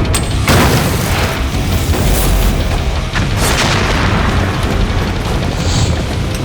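Explosions in a war film's battle soundtrack: several sudden blasts, the strongest about half a second in and another around three and a half seconds in, over a continuous low rumble, with music playing underneath.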